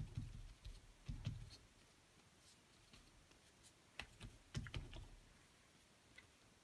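Faint scuffing and light tapping of an inked baby wipe rubbed over cardstock on a craft mat. It comes in three short bursts: at the start, about a second in, and again around four to five seconds in, with soft thuds under the strokes.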